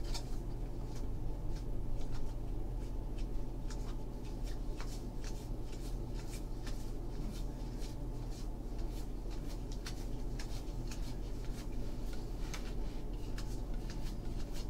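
Baseball trading cards being flipped through by hand, each card slid off the stack with a quick papery flick, irregularly, a couple each second, over a steady low hum.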